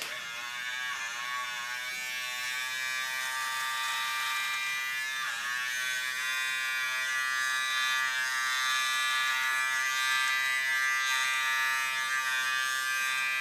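Small battery-powered electric shaver running with a steady buzz as it is drawn through underarm hair; its pitch dips briefly about half a second in and again about five seconds in.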